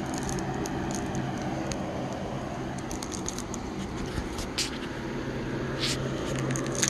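Plastic packaging wrap crinkling in scattered short clicks and a couple of brief rustles, over a steady low hum.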